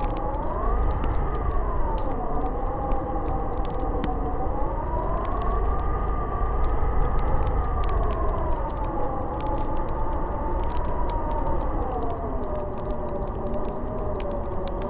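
Snowstorm wind howling: a whistling tone that slowly rises and falls in pitch over a steady low rumble, with scattered faint clicks.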